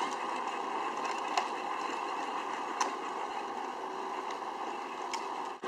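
Peg Perego John Deere Ground Force battery-powered ride-on toy tractor driving on asphalt: a steady whir from its electric motor and gears, and its plastic wheels rolling on the pavement, with a few light clicks.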